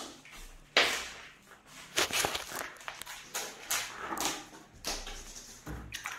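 Hand trowel and bare hand scraping and spreading a crumbly sand-and-cement mortar bed over a concrete slab for floor tiles, in a run of irregular scraping strokes.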